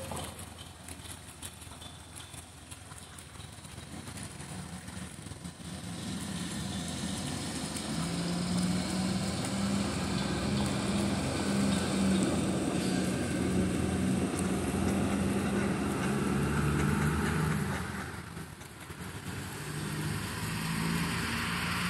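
Motor vehicle engine running with a steady low hum, louder from about six seconds in, dipping briefly near the end and then rising again.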